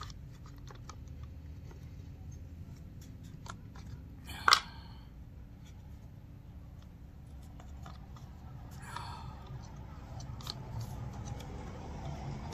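Plastic and metal parts of an airless paint sprayer's pump drive being handled and fitted together: scattered light clicks and taps, with one sharp click about four and a half seconds in and a short scrape a few seconds later.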